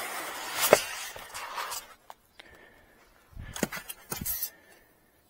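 Packing foam being pulled and worked out of a shipping box: rustling and scraping with sharp snaps and creaks, the loudest a crack a little under a second in. A second bout of rustling and knocks follows past the middle after a short lull.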